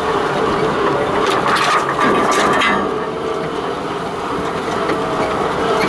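4x4 driving slowly along an overgrown grass lane, its engine and drivetrain droning steadily as heard from inside the cabin, with body rattles. About one to three seconds in there is a stretch of swishing as hedge and long grass brush along the side of the vehicle.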